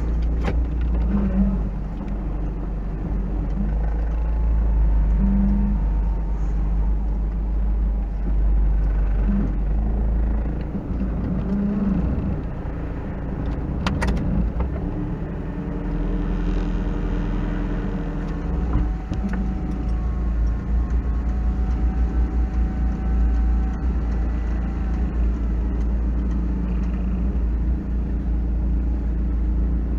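Engine of a 1986 Toyota 4x4 running at low speed while rock crawling, its rumble rising and falling as the throttle is worked.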